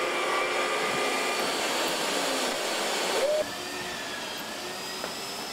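Electric magnetic-base drill's motor running steadily against a steel girder, then dropping suddenly to a quieter level about three and a half seconds in.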